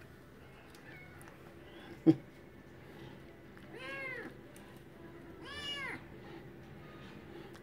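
A cat meowing twice, each meow rising and then falling in pitch, about four and five and a half seconds in. A single sharp knock about two seconds in is the loudest sound.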